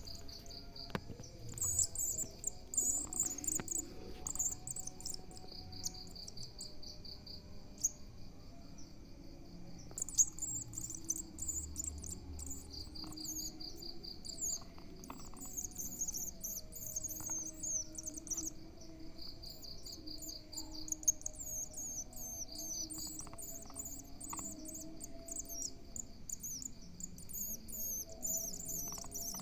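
Spiderhunter nestlings giving rapid, high-pitched begging chirps in bursts, as chicks do when being hand-fed. A cricket's short pulsed trill repeats every few seconds underneath.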